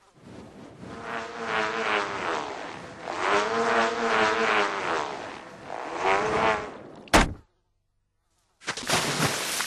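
Bullroarer whirring as it is swung overhead, its pitch rising and falling in three long swells. About seven seconds in it ends with a sharp click, and after a brief silence a shorter, noisier whirring burst comes near the end.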